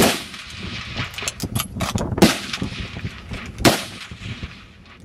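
Rifle shots on a range: three sharp reports, one right at the start, one a little past two seconds and one at about three and a half seconds, each trailing off in a short echo. Lighter clicks and knocks fall between the first two shots.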